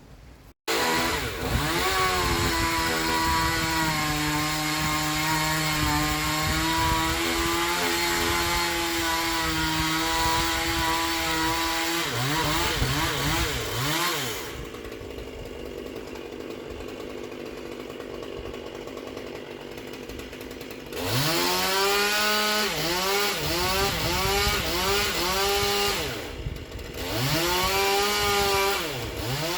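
Two-stroke chainsaw cutting into a silver maple, running at a steady high speed for about ten seconds. It is then revved up and down, drops back to a quieter idle for several seconds, and is revved in repeated rising and falling blips near the end.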